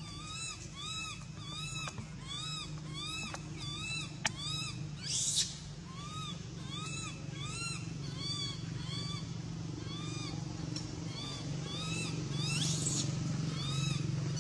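Baby long-tailed macaque crying: a steady run of short, high, arched calls, about two a second, broken by harsher squeals about five seconds in and again near the end. It is the cry of an infant begging to nurse. A sharp click sounds about four seconds in.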